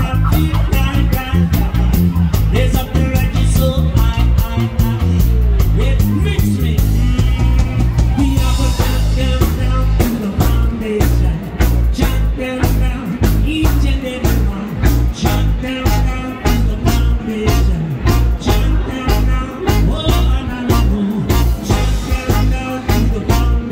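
Live reggae band playing: trombone and saxophone on a horn line over electric guitar, bass and a steady drum beat, with a man singing.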